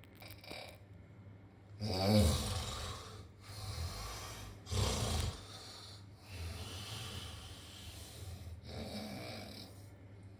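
A sleeping person snoring. The loudest snore comes about two seconds in and a shorter strong one about five seconds in, followed by softer snoring breaths and one more near the end.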